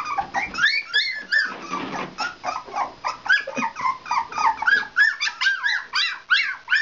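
A litter of keeshond puppies screaming together for their mother: a continuous overlapping chorus of short, high-pitched yelps and whines, several a second.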